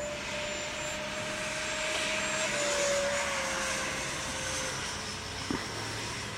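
Freewing F-86 model jet's electric ducted fan running in flight: a rushing whine that grows louder, then drops in pitch about halfway through. A short click near the end.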